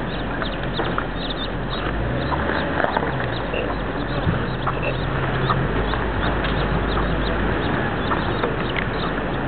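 Domestic hen and her chicks calling, with short high chick peeps scattered throughout over a steady background hiss.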